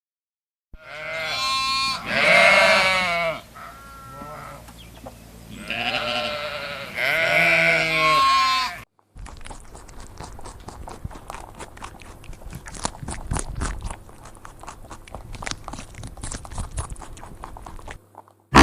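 Goat bleating repeatedly: about five long, wavering calls in the first half. After an abrupt cut come about nine seconds of quieter, rapid, irregular crackling and crunching.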